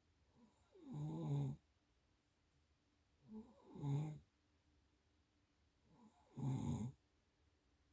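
A sleeping person snoring: three snores, each about half a second long, coming every two and a half to three seconds in a steady breathing rhythm.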